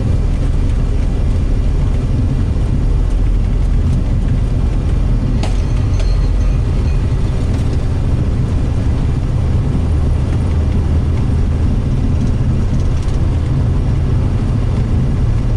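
Boeing 727-200's three Pratt & Whitney JT8D turbofans at takeoff power, heard in the cockpit during the takeoff roll: a loud, steady, deep rumble. A single click comes about five seconds in.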